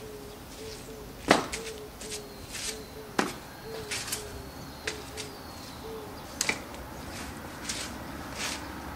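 A dove cooing in a steady series of short low notes that stops about six seconds in, over several sharp scuffs and slaps from footwork and clothing. The loudest slap comes just over a second in.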